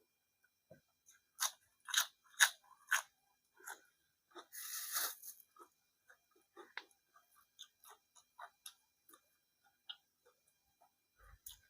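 Close-miked chewing and crunching of food in the mouth. Four sharp crunches come in quick succession between about 1.5 and 3 seconds in, then a longer crackly crunch around five seconds, then softer chewing and wet mouth clicks.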